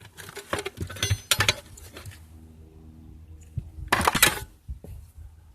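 Loose metal car parts and tools clinking and knocking together as they are handled and sorted: a run of clinks in the first second and a half, then another short cluster about four seconds in.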